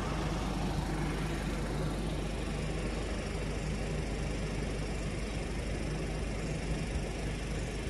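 Steady street background noise: an even hiss with a faint low hum underneath and no distinct events.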